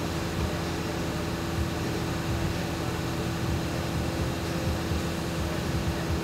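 Steady mechanical hum with one constant tone: the background noise of a workshop, with no distinct knocks or tool sounds.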